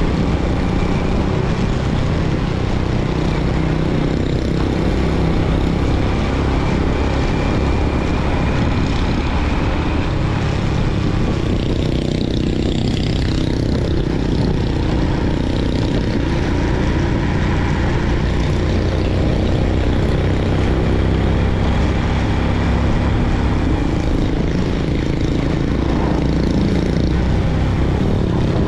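Motorbike engine running steadily while cruising along, with wind and road noise rushing across the microphone.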